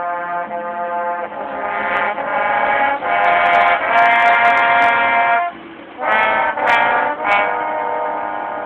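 High school marching band brass playing sustained chords that swell louder, break off sharply about five and a half seconds in, then three short accented hits and a held chord that slowly fades.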